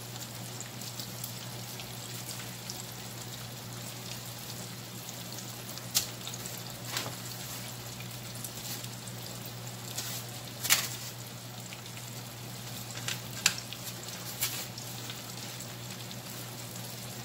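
Breaded fish fillet frying in a skillet of hot oil: a steady sizzle with a few sharp pops scattered through it.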